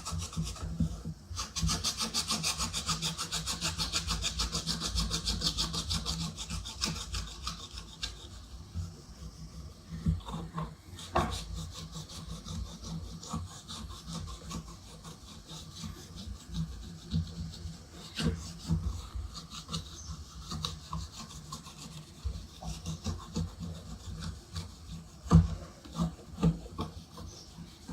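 Cotton rubbed quickly back and forth over a table-fan blade to wipe it clean: fast, steady scrubbing strokes for the first several seconds, then slower, quieter wiping with a few light knocks.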